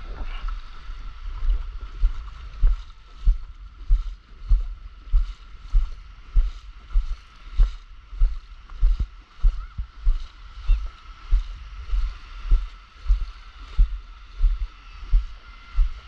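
Shallow seawater sloshing at a stand-up paddleboard, with a regular low thump about one and a half times a second.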